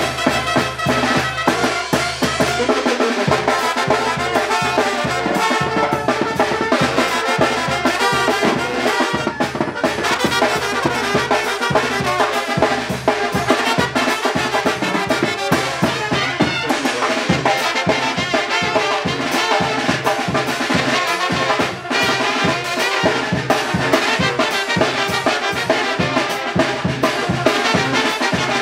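Live Mexican brass band (banda de viento) playing: trumpets and other brass over a sousaphone bass line, with drum kit, congas and timbales keeping a steady beat.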